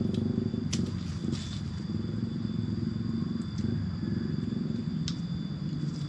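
Steady low rumble under a thin, steady high drone of forest insects, with a few faint clicks.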